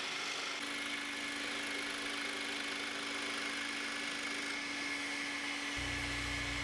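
DeWalt DW788 scroll saw running and cutting a thin piece of redheart, together with a shop vacuum drawing the dust off through the Scrollnado tubes: a steady mechanical hum with a high whine, a lower tone joining about half a second in.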